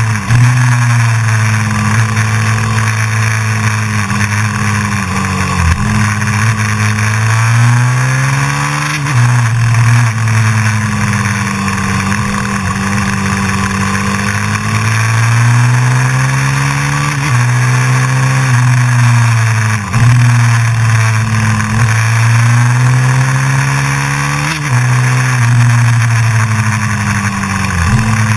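Honda CRF450X's single-cylinder four-stroke engine pulling hard up a twisty road, its pitch climbing under throttle and dropping sharply several times at shifts or roll-offs for the bends.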